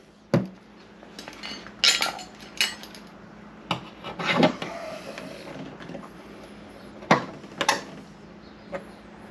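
Irregular sharp metallic taps and clinks from paintless dent repair tools working a dent spot on an aluminium car hood.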